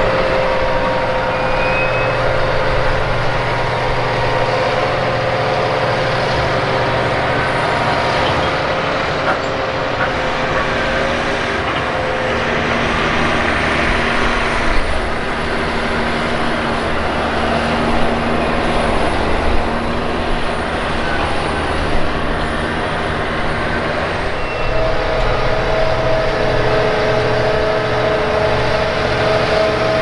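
Diesel engines of big John Deere tractors, an 8320R and a 9230, running steadily under load as they push and pack a pile of chopped ear corn. The engine note changes about a third of the way in and again near the end.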